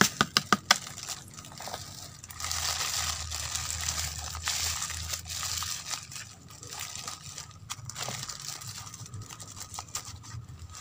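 A few quick sharp taps of a spoon against a plastic basin, then a thin plastic bag crinkling and rustling as it is handled and closed, fainter toward the end.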